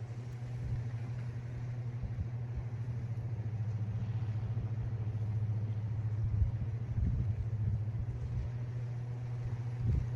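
Steady low rumble of wind and surf at the seashore, with gusts buffeting the microphone.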